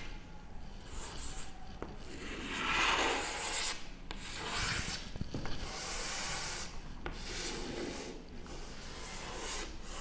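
Chalk drawing long lines on a blackboard: several scraping strokes, each a second or two long, with short pauses between them.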